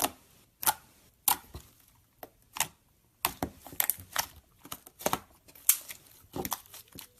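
Slime being handled: an irregular series of sharp pops and crackles, some coming in quick clusters.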